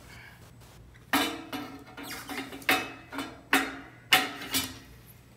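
Metal clanks of a hand tricycle's front fork section and main frame knocking together as they are fitted into each other: about seven irregular knocks, each with a short metallic ring.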